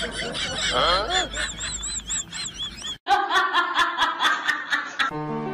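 A woman laughing hard in quick, evenly spaced bursts, cut in suddenly after about three seconds of outdoor voices. Music with plucked strings and piano starts near the end.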